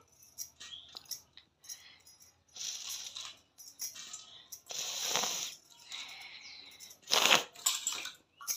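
Stainless steel plates and bowls clinking and rattling as green chillies are cut on a floor-mounted blade and dropped into a steel plate. There are a few short, louder bursts of noise, the loudest about seven seconds in.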